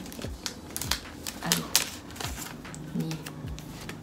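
Crinkling and clicking of a plastic acne-patch sachet being handled and opened, in irregular sharp crackles, with a couple of short murmurs.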